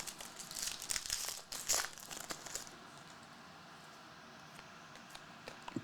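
A foil trading-card pack wrapper crinkling and tearing as it is opened, a run of crackly rustles for the first two or three seconds before it goes quiet.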